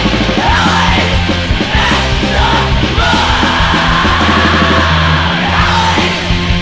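Live punk band playing loudly, with a vocalist yelling over held, heavy low bass notes.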